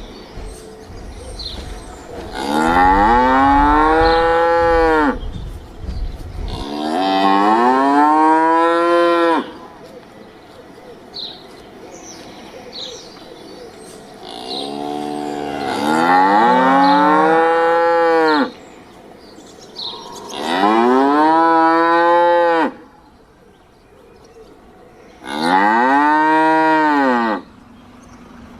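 Cattle mooing: about five long moos a few seconds apart, each rising and then falling in pitch.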